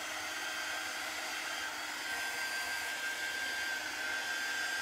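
Handheld craft heat tool blowing steadily as it dries a design on a T-shirt: a steady airflow hiss with a thin high whine running through it, a sound the user finds weird and odd.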